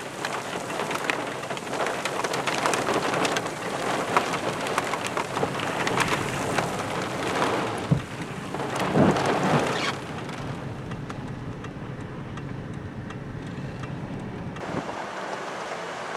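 Heavy rain of a thunderstorm, with many drops ticking close to the microphone. It swells louder around nine seconds in, then eases to a lighter, steadier rain after about ten seconds.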